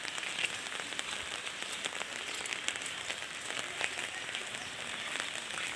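Heavy rain falling steadily: a dense hiss of rain with many small sharp ticks of drops striking a surface.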